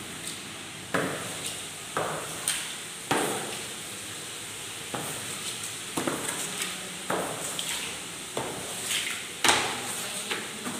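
Push broom being swept in repeated strokes across a tiled floor, about one stroke a second, each starting sharply and trailing off in a short scrape.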